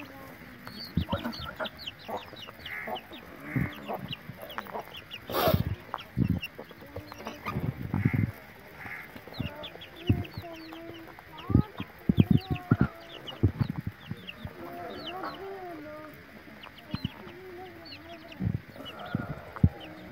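Chickens clucking, with rapid high peeping throughout and low wavering hen calls in the middle stretch. Scattered brief thumps, the loudest about five seconds in.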